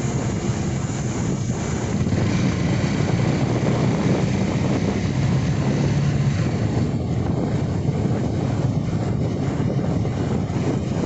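Motorcycle running steadily at riding speed, its low engine hum mixed with wind rushing over the microphone; the engine note grows stronger for a few seconds near the middle.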